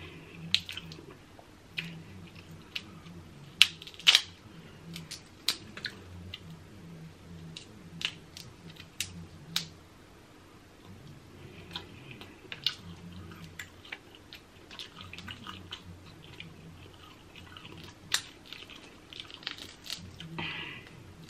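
Close-up eating of crab: sharp cracks and snaps of shell scattered throughout, the loudest a pair about four seconds in, with wet chewing sounds in between.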